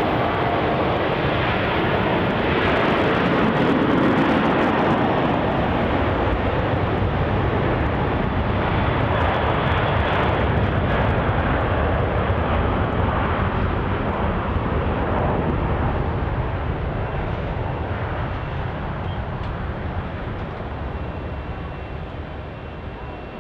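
Jet airliner engines at takeoff thrust: a loud, steady rush of jet noise that swells a few seconds in and fades gradually over the last several seconds.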